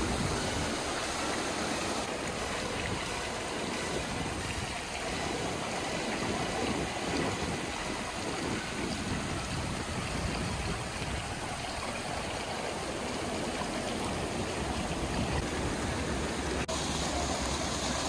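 Stream water rushing steadily over rocks and small waterfalls.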